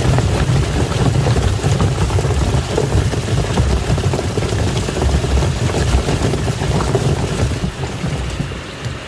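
Washing machine running with water churning in the drum: a steady motor rumble under busy sloshing, getting quieter near the end.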